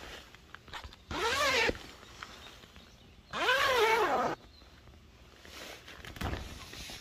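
Two drawn-out voiced calls, each rising and then falling in pitch. The second call is longer than the first.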